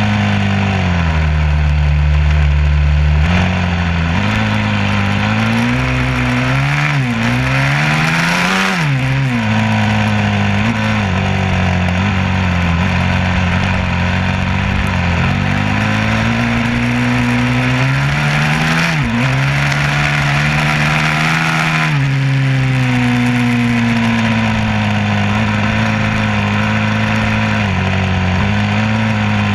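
A motor vehicle's engine running continuously, its pitch climbing under acceleration twice and then dropping back to a steady note.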